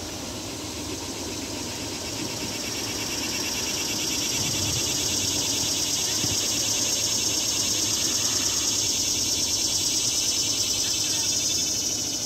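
High-pitched insect buzz from the trees, swelling over several seconds and fading near the end, over a low steady hum.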